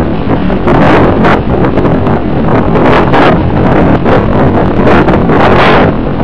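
Loud wind rushing and buffeting over the microphone of a camera riding on a radio-controlled model airplane in flight. It comes in repeated gusts.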